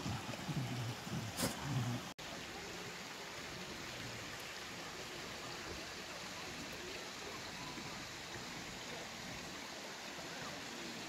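Steady rushing of a nearby stream and waterfall, an even hiss of water. In the first two seconds there are a few brief, low sounds close to the microphone, cut off abruptly by an edit about two seconds in.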